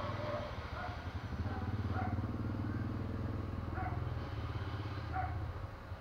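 Steady low hum of an idling engine, with four short bird notes spaced out over it.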